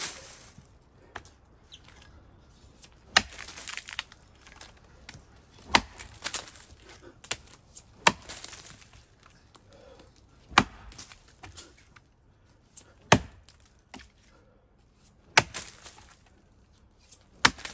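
Axe chopping into the notch of a standing tree trunk: seven heavy, sharp strikes about every two and a half seconds, with a few fainter knocks between.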